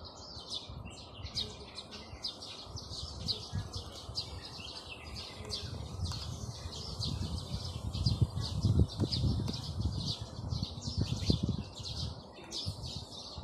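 Many small birds chirping together in a dense, unbroken chatter. An irregular low rumble grows louder from about halfway.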